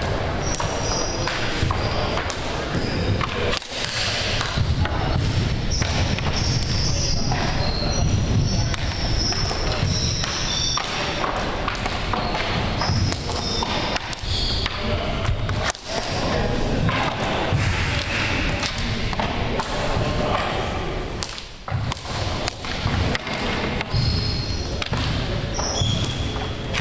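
Floor hockey warm-up: a run of irregular thuds and knocks from sticks and shots hitting the hardwood gym floor and walls, echoing in the hall, with voices murmuring underneath.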